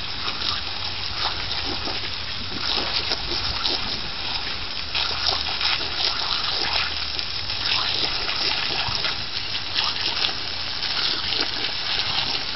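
Water from a garden hose spraying onto wet paving stones: a steady hiss of splashing with many small splats.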